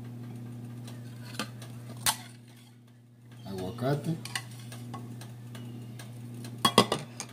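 Metal spoon clinking against a ceramic soup bowl while avocado is spooned into the broth: one sharp clink about two seconds in and a quick cluster of clinks near the end, over a steady low hum.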